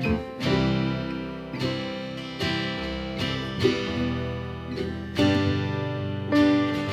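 Instrumental music led by strummed acoustic guitar chords, with new chords struck every second or so.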